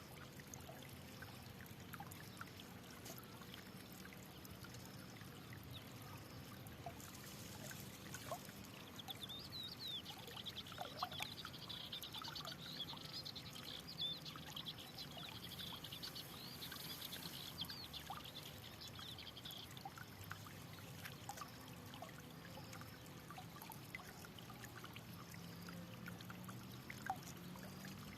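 Water trickling and flowing steadily in a small stream. A bird chirps rapidly and high for about ten seconds in the middle.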